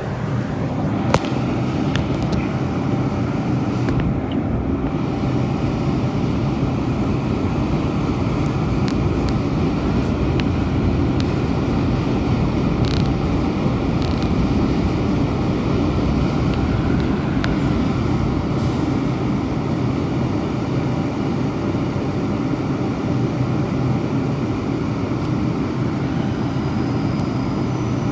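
Steady low hum inside a Bombardier R142 subway car standing at a station, from its running onboard equipment, with a sharp knock about a second in.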